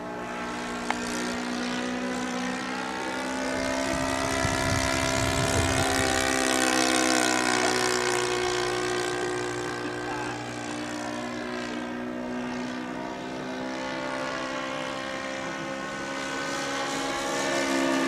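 Engine and propeller of a Seagull Models Bücker Jungmeister radio-control model biplane in flight overhead, a steady drone whose pitch rises and falls as the plane passes and manoeuvres.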